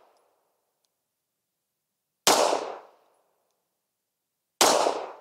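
Two 9mm pistol shots about two seconds apart from a Sig Sauer P320 X-Five firing Federal American Eagle 147-grain FMJ rounds. Each is a sharp crack with a short ringing decay, and the tail of the previous shot fades out at the start.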